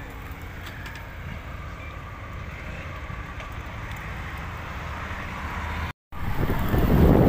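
Road traffic noise from motorcycles and cars coming along the road, a steady rumble growing slowly louder. After a sudden cut about six seconds in, loud wind noise on the microphone of a phone carried on a moving bicycle.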